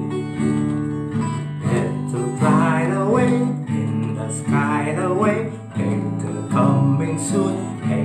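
Acoustic guitar strumming simple chords, with a man singing over it.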